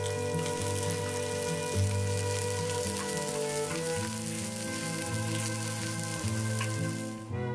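Egg-batter vegetable pancakes sizzling in oil on a flat griddle, a steady hiss of frying with background music. The sizzle cuts off suddenly near the end while the music goes on.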